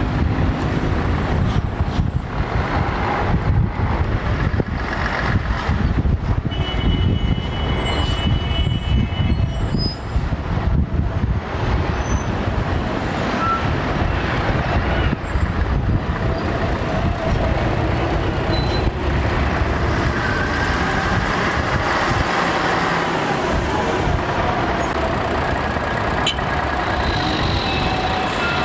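Busy city street traffic: buses and cars driving past with a continuous engine and tyre rumble. Brief high-pitched whines sound a few times, once about a quarter of the way in and again near the end.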